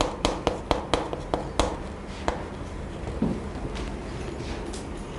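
Chalk tapping on a chalkboard as characters are written: quick sharp taps about five a second for the first second and a half, then a few scattered, fainter strokes.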